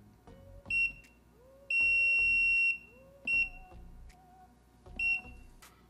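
Liumy LM2020 graphical multimeter beeping at each key press as its oscilloscope range is stepped with the F3 button: three short high beeps, about a second in, past three seconds and near five seconds, and one longer beep of about a second between the first two.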